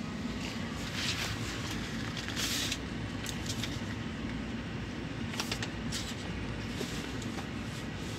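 A steady low machine hum, with a short rush of noise about two and a half seconds in and a few light clicks a little past halfway.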